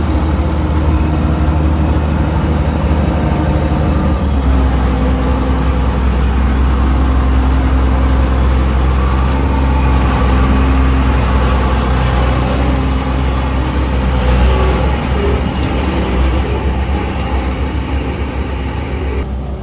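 Heavy diesel farm-machinery engine running steadily under load, a loud continuous hum whose pitch shifts about four seconds in.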